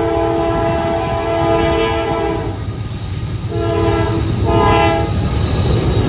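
Horn of a GE AC44C6M diesel locomotive sounding a multi-tone chord: one blast cuts off about two and a half seconds in, and another of about a second and a half follows a short pause, over the steady rumble of the moving train.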